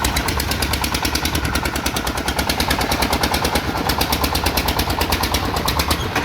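Powered hammering tool striking concrete or ground in a rapid, even train of blows, about a dozen a second, over a low engine rumble. It stops near the end.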